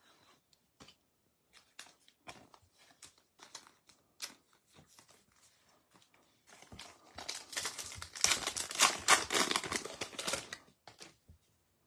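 Light, scattered clicks and taps as trading cards and packs are handled. About six and a half seconds in, a 2022 Topps Heritage baseball card pack's wrapper crinkles loudly as it is torn open by hand, for about four seconds.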